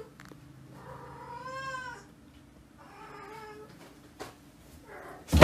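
Cat meowing twice: a long meow that rises and falls in pitch about a second in, then a shorter one. A loud, noisy burst cuts in at the very end.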